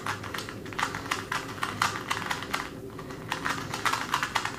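Rapid, irregular small plastic clicks and rattles from a 2x2 speedcube being handled, densest in the second half.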